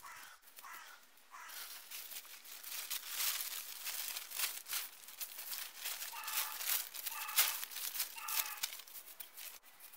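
Plastic tarp crinkling and rustling as it is thrown over a rope ridgeline and pulled into place. A bird calls several times, a few short calls near the start and three more in the second half.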